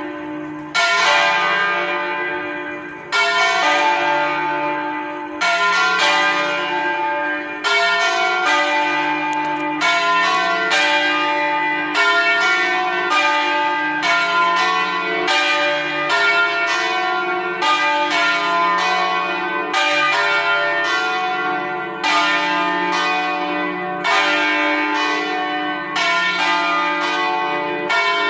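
Church bells in a campanile rung by hand 'a stanga', swung with levers. Several bells strike one after another, a stroke every half second to a second, and their hum rings on between the strokes.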